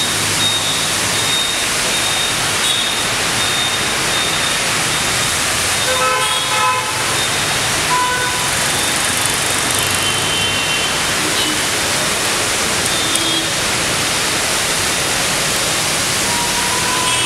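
Steady hiss of rain on a wet road with cars, motorbikes and auto-rickshaws swishing past through the water. Vehicle horns toot about six seconds in, with shorter toots later on.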